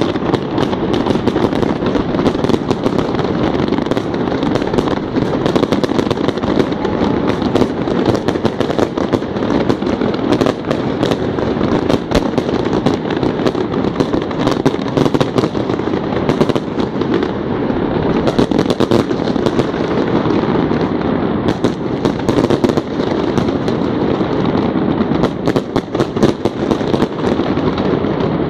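Fireworks display: a continuous barrage of sharp cracks and pops over a steady rumble of many bursts.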